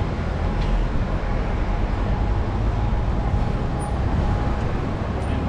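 Steady street noise: an even low rumble with a faint steady hum, without sudden events.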